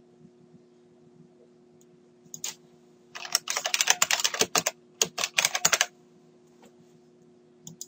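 Computer keyboard being typed on: a quick run of key clicks lasting about three seconds, with a short break in the middle, over a faint steady hum.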